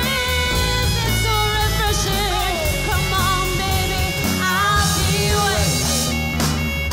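Live band playing a rock-pop song, a woman singing lead over acoustic and electric guitar, violin and drums.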